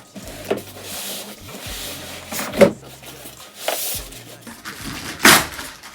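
Cardboard and foam packing scraping and rustling as a heavy-duty sewing machine is pulled out of its box, with a handful of sharp scrapes or knocks, the loudest about halfway through.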